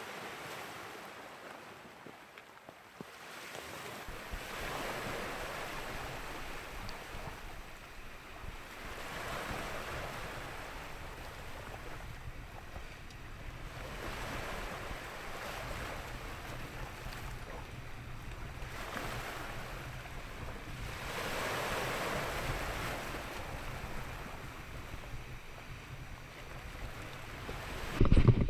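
Ocean surf breaking on a beach, a rushing wash that swells and fades about every four to five seconds, with low wind rumble on the microphone. A short loud knock near the end.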